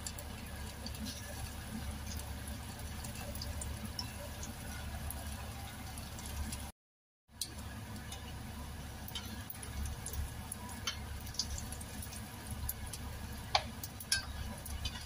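Potato meatballs deep-frying in hot oil in a wok: a steady sizzle with many small pops and crackles. The sound cuts out briefly about seven seconds in. Near the end come a few sharper clicks as a slotted spatula works in the pan.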